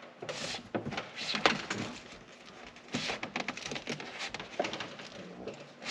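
Irregular rustling and light knocks of a wire being pulled through a slit in the fabric of a car's rear seat back and handled.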